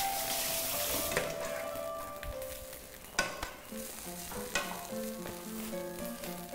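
Soya burger patties sizzling as they fry in olive oil, the hiss strongest in the first second and then thinner. A metal slotted spatula clicks against the pan a couple of times as the patties are turned. Soft background music with held notes plays underneath.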